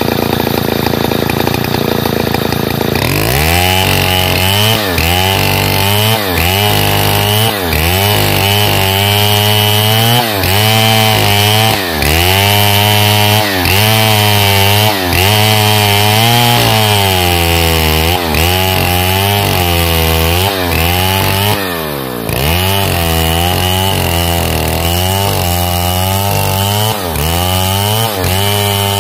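Stihl 070 two-stroke chainsaw idling for about three seconds, then revved up and ripping lengthwise along a pine log. Its engine speed repeatedly sags under the load and picks back up every second or two, with one deeper bog about three quarters of the way through.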